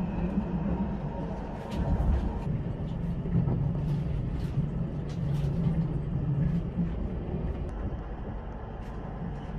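ÖBB Railjet passenger train running at speed, heard from inside the carriage: a steady low rumble and hum, with scattered sharp clicks.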